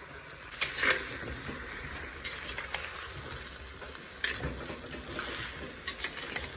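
Cubes of pork sizzling as they fry in oil in a glazed clay cazuela, with a spatula scraping and knocking against the pot now and then as they are stirred.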